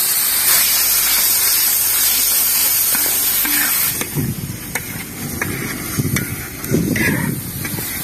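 Hot oil sizzling steadily in a large wok as the aromatics are fried. About halfway through the hiss falls back, and a few sharp clicks and some clatter come in.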